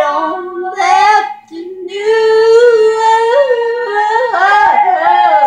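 A woman singing alone with no accompaniment, in three phrases with a long held note in the middle and the pitch bending at the ends. A faint steady hum runs underneath.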